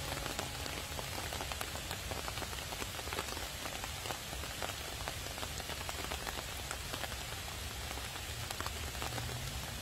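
Steady rain falling, with many separate drop hits heard through the even hiss.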